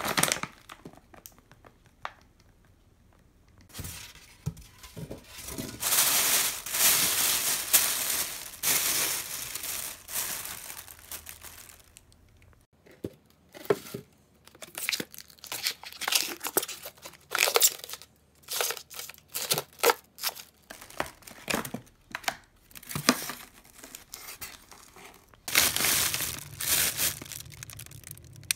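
Plastic food pouches and a plastic bag crinkling and rustling as they are handled, in several stretches, with a run of short separate crinkles in the middle.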